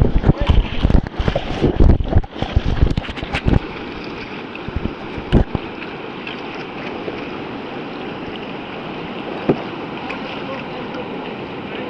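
Churning white water of a standing play wave, with a steady rushing sound. For the first few seconds it is broken by loud, irregular splashes and thuds of water breaking over the kayak and the camera.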